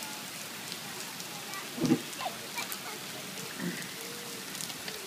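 Steady rain falling, with many single drops ticking close by, and a couple of brief, louder low thumps about two seconds in and again shortly after the middle.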